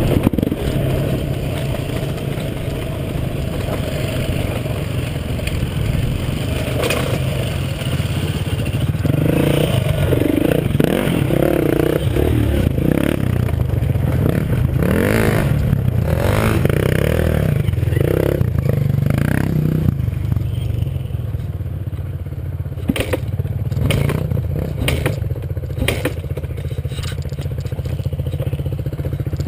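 Dirt bike engine running at low revs on a rough downhill dirt trail, with wind rushing over the helmet-mounted microphone at times and the bike clattering and scraping over ruts and brush. Several sharp knocks come in the last third.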